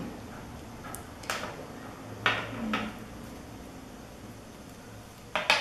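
Light handling sounds from a flat braided leather bracelet with metal jump rings and a metal clasp terminal being worked by hand on a tabletop: a few short clicks and knocks, the loudest near the end.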